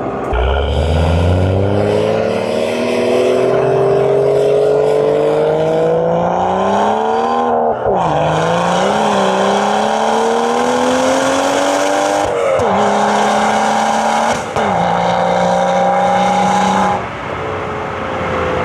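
BMW 435's engine pulling hard through the gears: the pitch climbs, drops at a gear change about eight seconds in and climbs again. Two more quick shifts follow, at about twelve and a half and fourteen and a half seconds, each followed by a nearly steady pitch. Near the end it lifts off and the pitch falls away.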